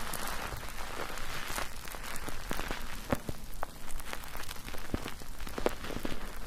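Soap lather being worked in a foaming net: wet squishing with fine crackling and popping of bubbles, and scattered sharp clicks.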